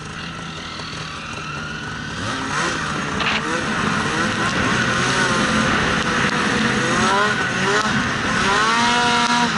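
Polaris RMK Khaos 850 snowmobile's two-stroke engine revving as it runs through deep powder, its pitch rising and falling several times. It gets louder over the first few seconds, then stays loud.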